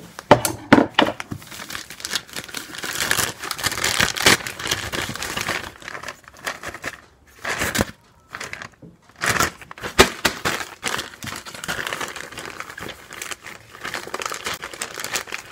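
A postage bag being jabbed open with a screwdriver, then torn and crinkled as the contents are pulled out. The sound is an irregular crinkling and tearing with a few sharp knocks, and it drops out briefly a little past the middle.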